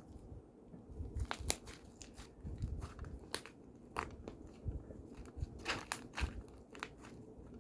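Fluffy white slime mixed with foam being squished and stretched by hand, giving irregular soft crackles and pops.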